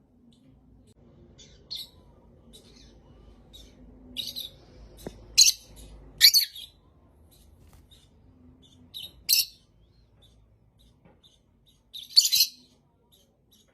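A parrot giving several short, high-pitched calls at uneven intervals, the loudest about five and six seconds in and again near the end.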